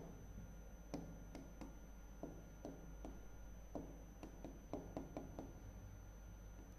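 Fingertips tapping on a large touchscreen panel while typing on its on-screen keyboard: about a dozen short, irregular taps, with a faint steady electrical hum underneath.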